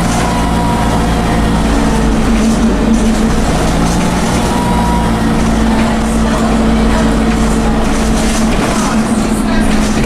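Dennis Dart bus's Cummins diesel engine running steadily under way, with a high turbocharger whine over the low engine note.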